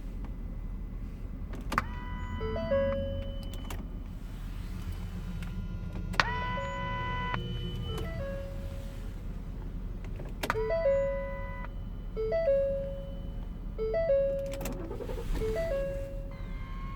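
Steady low hum and static from the Ford Explorer's front speaker, the audio fault in question, with short electronic tones and two-note blips sounding at intervals over it.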